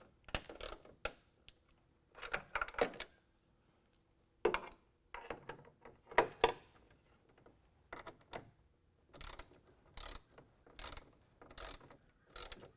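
Hand ratchet with a T40 Torx bit clicking in repeated short strokes as it tightens a bolt down against a nut held by a wrench, with brief pauses between strokes.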